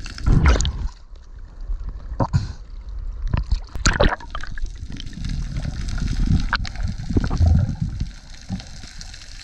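Water heard through an underwater camera: water rushing and sloshing past as a diver swims, with louder surges about half a second in and around four seconds in, a low rumbling stretch in the second half, and scattered faint clicks and crackle.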